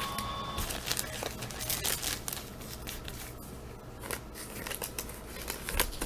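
Wax-paper wrapper of a 1983 Topps baseball card pack crinkling and tearing as the pack is opened, in a run of quick, irregular crackles.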